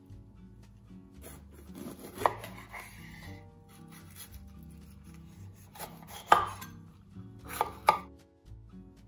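Chef's knife chopping a red bell pepper on a wooden cutting board: sharp knife strikes on the board, loudest about two seconds in, about six seconds in, and a quick pair near the end.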